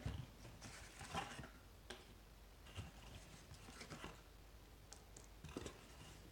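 Faint handling noise: a scattering of soft clicks, knocks and rustles, about one a second, as small parts and packaging are moved about on a wooden tabletop.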